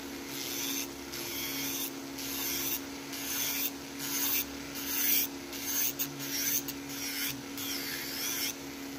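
A nail file rasping back and forth over an acrylic nail in short repeated strokes, roughly one or two a second, shaping it near the cuticle.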